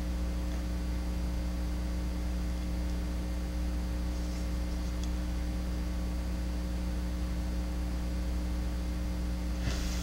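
Steady electrical mains hum, a low buzz with a row of higher overtones, holding at an even level; a faint soft noise comes in near the end.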